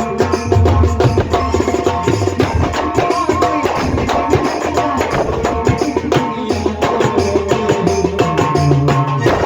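Instrumental music with a fast, steady percussion beat under sustained melody notes, with no singing.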